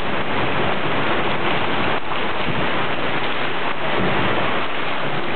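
Heavy rain pouring down onto the street and buildings: a loud, steady hiss of downpour with no let-up.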